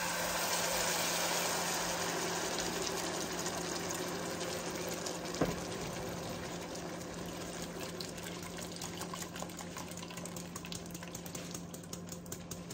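Blended tomato sauce poured through a metal mesh strainer into a hot pan of fried onions, sizzling and splashing as it hits the oil; the hiss slowly dies down. One light knock about five seconds in.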